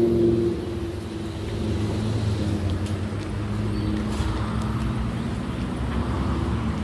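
Low, steady engine hum of road traffic, louder in the first half second and then easing to a constant drone.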